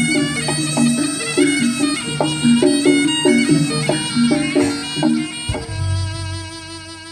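Javanese jaranan ensemble music: a shrill, reedy slompret (shawm) melody over rhythmic drum strikes. About five and a half seconds in the drumming stops and a held note fades away as the music ends.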